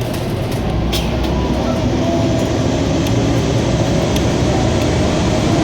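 Hovercraft engines and fans running, a steady noisy rumble that grows gradually louder.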